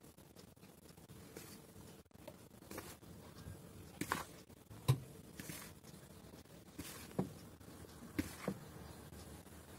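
A metal spoon scooping flour out of a plastic mixing bowl, with faint scrapes and a few soft knocks against the bowl. The loudest knock comes about five seconds in.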